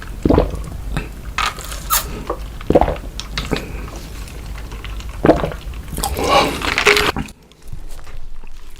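Close-miked wet chewing and mouth sounds of someone eating: irregular smacks and squishes of food being chewed.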